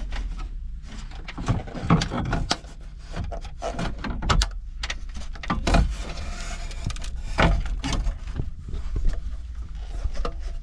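Factory car radio being pulled out of the dashboard: irregular plastic and metal knocks, clicks and scraping as the unit is worked loose, with a loud knock about seven seconds in.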